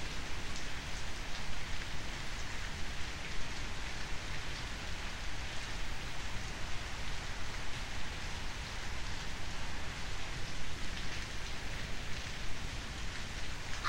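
Steady rain, an even hiss with scattered light patter of drops.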